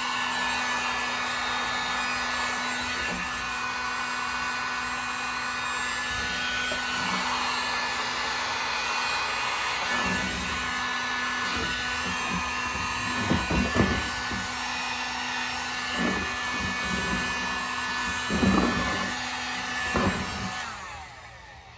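Harbor Freight electric heat gun running on its high setting: a steady rush of blown air with a constant motor hum, shrinking a plastic bottle onto gas can threads. A few knocks from handling come in the second half, and the gun shuts off just before the end.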